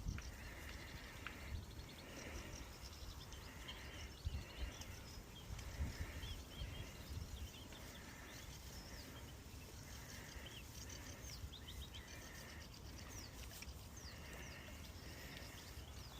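Strong wind rumbling on the microphone, with birds chirping and singing throughout and a short call repeating about once a second.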